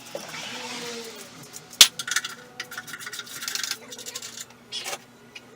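Rubbing and scraping with scattered clicks and rattles, and one sharp knock near two seconds in.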